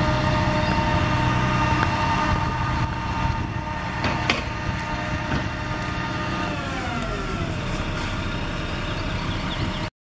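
Concrete pump truck's engine running steadily with a few sharp clacks about four seconds in. A bit past halfway its pitch slides down as the engine winds down to a lower speed, the pumping done.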